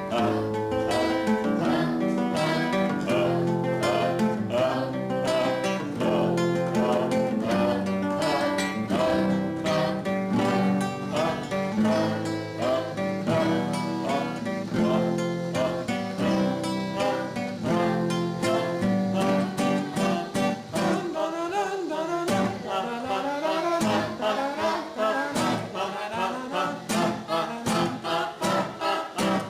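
Music led by a plucked acoustic guitar in a steady rhythmic pattern; about two-thirds of the way through, the deep bass drops away and lighter picking carries on.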